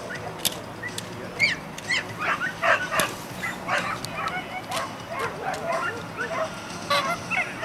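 Dog whining and yelping in excitement: a rapid run of short, high-pitched yips and squeals, starting about a second and a half in.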